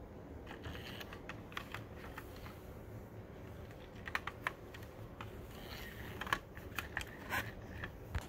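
Faint, scattered clicks and taps of a toy car being handled and turned over in the hand, bunched about halfway through and again near the end.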